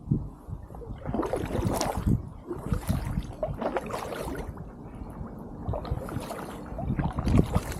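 Kayak paddle strokes dipping and splashing in the water, about five in an uneven rhythm roughly a second apart, over a steady low rumble.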